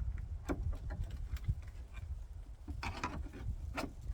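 A few scattered clicks and knocks of loose car dash and trim parts being handled and pulled, over a steady low rumble.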